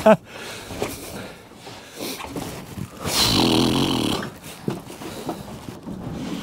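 A man's breathy, strained grunt lasting about a second, starting about three seconds in, as he reaches over the boat's side to grab a tope, with a few scattered knocks around it.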